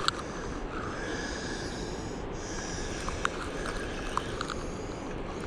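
Spinning reel being cranked to bring in a hooked catfish: a soft whir with a few scattered light clicks over a steady rushing noise.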